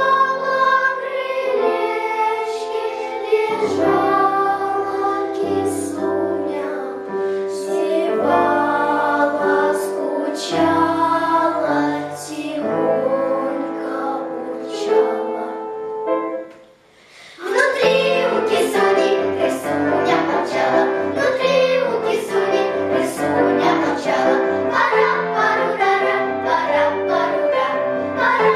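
Small girls' choir singing a Russian children's song in unison with upright piano accompaniment. The music breaks off briefly about two-thirds of the way through, then singing and piano resume.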